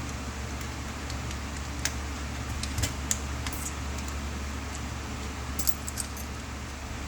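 Scattered small clicks and light metallic ticks of tools and small parts being handled on a workbench, over a steady low hum.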